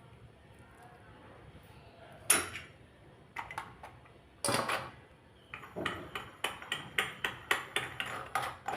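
Metal clinks and knocks from a handheld murukku press being loaded: the ribbon die set in and dough packed into the barrel. A sharp knock comes about two seconds in, then another, and near the end a quick run of light clicks, about three or four a second.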